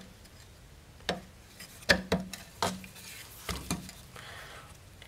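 Hard plastic spacer and steel strut mount plates knocking and clicking together as they are handled and fitted over the mount studs. About half a dozen sharp knocks, with a short rub near the end.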